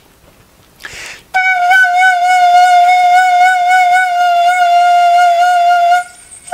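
Danso (Korean vertical notched flute) played: a short rush of breath about a second in, then one long steady note with a slight waver, held for about four and a half seconds before it stops.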